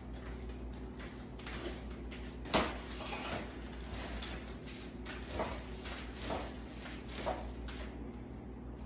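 Paint roller on an extension pole being worked in a plastic paint tray: a sharp knock about two and a half seconds in, then short rolling swishes about once a second as the roller is loaded with primer, over a steady low hum.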